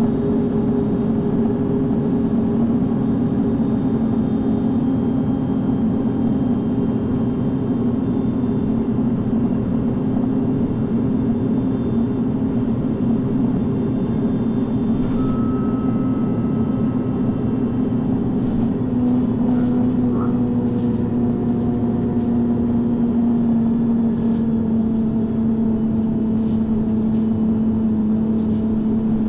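MAN NG 323 (Lion's City G) articulated bus's six-cylinder diesel engine running steadily, its drone sinking slightly in pitch about two-thirds of the way through, with a few light clicks and rattles.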